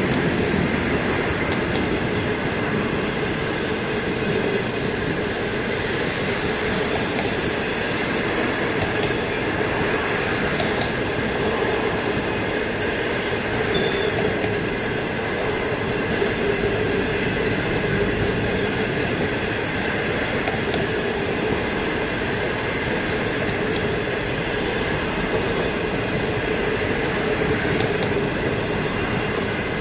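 A train of green conventional passenger coaches passing at close range: the steady rumble and hiss of steel wheels rolling on the rails.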